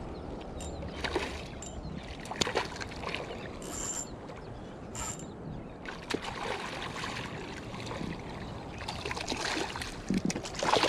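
A hooked black drum splashing at the surface of shallow water as it is reeled in, with repeated short splashes and sloshing. The splashes come thickest near the end, as the fish is brought to hand.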